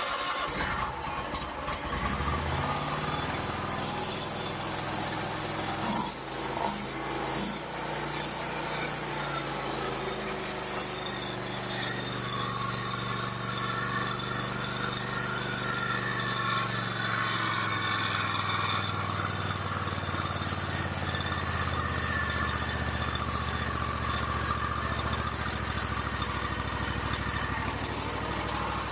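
Small lawn mower engine starting and running, its speed shifting in the first twenty seconds or so and then settling into a steady run. It is being test-run after its leaking intake manifold gaskets were replaced, the fault the owner blamed for its rough idle.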